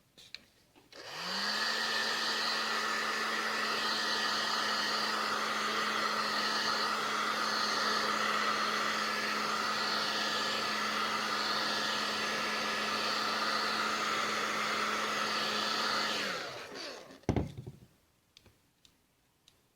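Handheld hot-air blower spinning up about a second in, blowing steadily with an even motor hum, then winding down after about fifteen seconds; it is warming the adhesive of double-sided tape so a replacement phone screen glass bonds. A single knock follows shortly after it stops.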